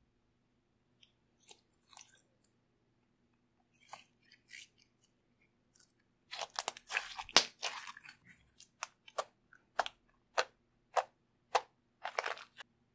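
Slime being squeezed and worked by hand, making sticky crackling. A few scattered clicks come first, then a dense burst of crackling about halfway through, then a run of single sharp pops about every half second and one more short crackle near the end.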